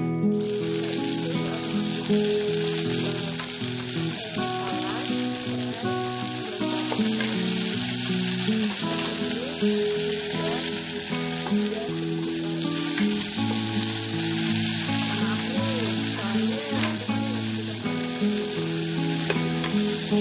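Sliced shallots and garlic sizzling steadily in hot frying oil, cooking until golden and fragrant, with background music playing underneath.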